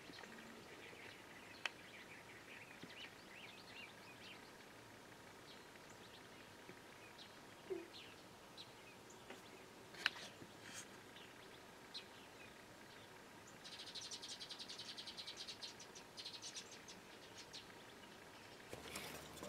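Faint outdoor ambience with scattered bird chirps and a few sharp clicks. About 14 seconds in, a rapid buzzing trill runs for two to three seconds.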